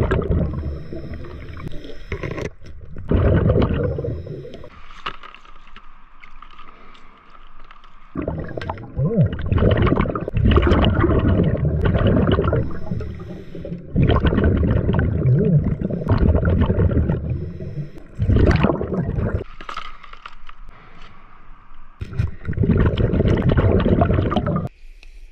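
Scuba regulator breathing heard underwater: loud bursts of exhaled bubbles, each lasting one to three seconds, about seven times, with quieter hiss between them.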